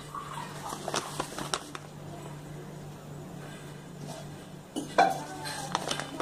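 Foil-lined plastic oats pouch crinkling as it is held open and handled, with short sharp clicks about a second in and a louder clatter about five seconds in. A steady low hum runs underneath.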